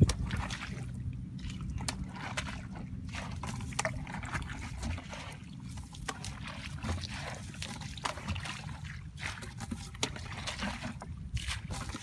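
Wading through shallow, muddy rice-paddy water: irregular sloshes, splashes and squelches of feet and hands moving through water and mud, over a steady low rumble.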